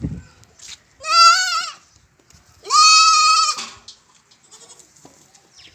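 Baby goat bleating twice, each a loud wavering call lasting about a second. A brief low knock comes just at the start.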